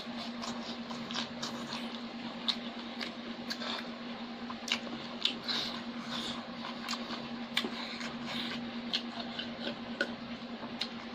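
Close-up eating sounds: wet chewing and mouth clicks, with fingers squishing rice and curry on a metal plate. A steady low hum runs underneath.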